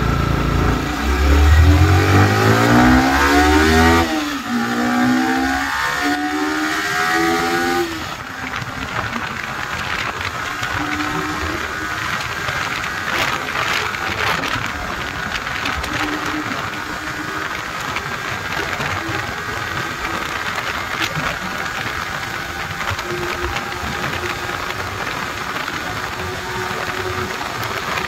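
Yamaha R15 V4's 155 cc single-cylinder engine pulling hard at full throttle, its pitch rising for the first several seconds. From about eight seconds in, a steady rush of wind at highway speed takes over, with the engine faint beneath it.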